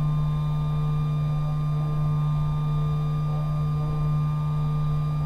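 CNC router's Z-axis drive whining with one steady, even tone as it slowly lowers a freshly changed bit onto the touch-off sensor: the automatic tool-length measurement that re-zeroes Z after a bit change. The spindle is powered off.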